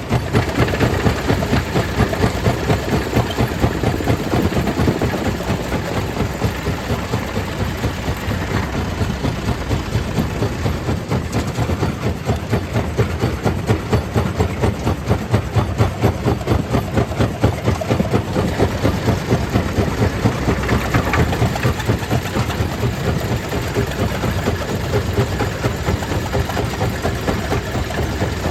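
Stone crusher machinery running steadily: a heavy engine-like drone with a regular pulsing beat of about three a second.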